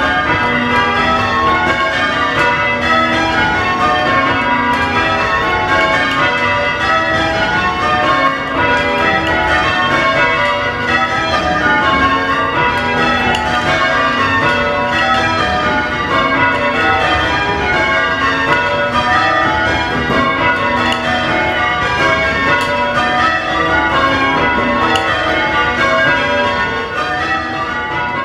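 A ring of eight church bells, seven modern Whitechapel bells and an old Warner 4th with a tenor in B, being rung in Surprise Major change ringing: a steady, unbroken stream of bell strikes heard from the ringing chamber beneath the bells.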